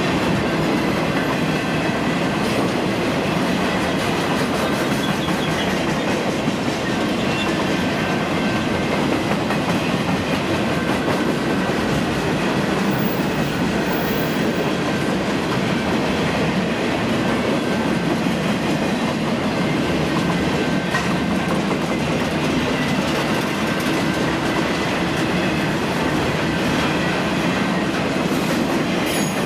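Train rolling past at speed, a long string of cars with its wheels running steadily on the rails.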